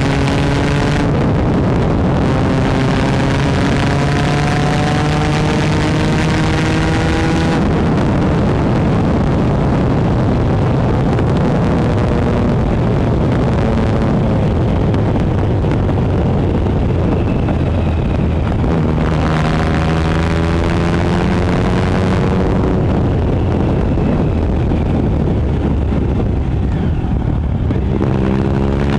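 2013 Triumph Speed Triple 1050's inline three-cylinder engine through a Competition Werks GP slip-on exhaust, pulling hard with a rising pitch for the first seven seconds or so, then rolling off. It climbs again about two-thirds of the way in and once more near the end, with wind rushing over the microphone throughout.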